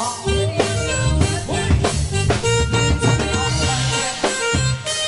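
Live band playing dance music: a keyboard carries a reedy lead melody over bass and a steady drum beat of about two hits a second.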